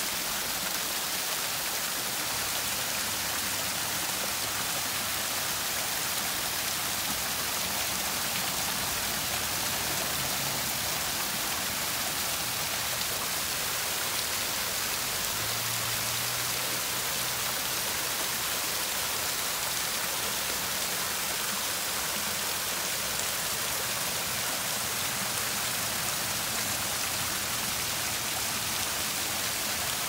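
Water falling in thin streams and sheets over an artificial rock waterfall fountain and splashing into the pool below: a steady hiss of falling water.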